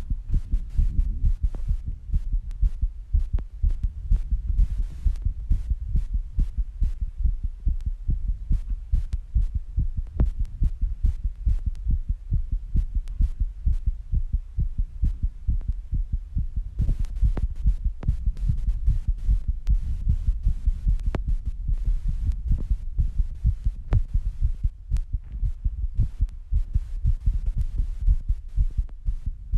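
A person's heart beating fast in a quick, even rhythm of low beats, racing after squats and rebreathing.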